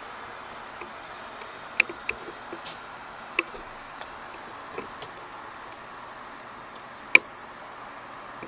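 Steady hiss picked up by a Pulsar Thermion XQ50 Pro thermal scope's built-in microphone, with a scattering of sharp clicks. The clicks are loudest a couple of seconds in and again near the end.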